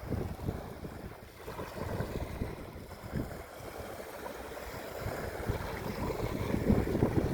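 Ocean waves washing and breaking, with a low gusty rumble of wind on the microphone; the wash swells louder about six seconds in.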